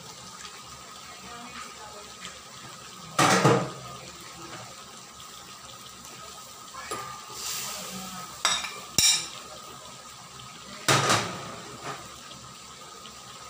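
Raw pork liver and then potato sticks tipped from a metal bowl into a hot wok of simmering pork. Several loud splashes and clatters of metal against metal stand out over a steady low sizzle.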